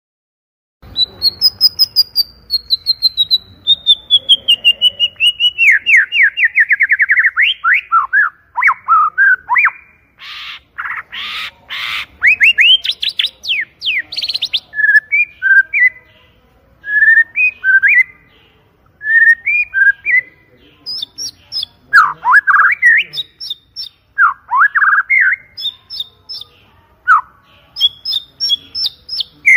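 White-rumped shama singing loudly. After about a second of silence, a long run of rapid notes slides down in pitch, followed by a few harsh rasping notes and then varied, clear whistled phrases.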